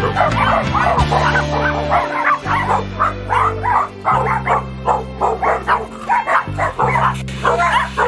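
A crowd of dogs barking and yipping all at once, dense and overlapping, over background music with held low bass notes.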